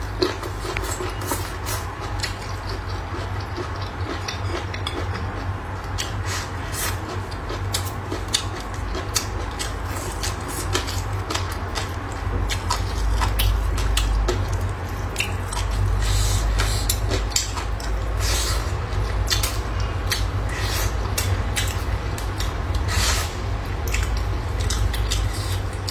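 Close-miked eating: chewing and crunching with frequent small clicks of chopsticks and dishes, over a low rumble that grows louder through the middle.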